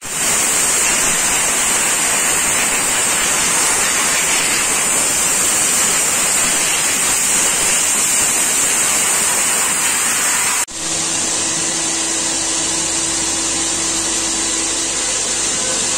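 Hand-held spray gun on a hose, hissing loudly and steadily as it blasts the car's bonnet. After a sudden cut about two-thirds through, a different steady machine noise with a low hum takes over.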